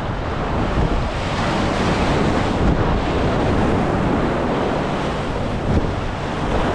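Wind buffeting the microphone over the steady wash of waves against a jetty.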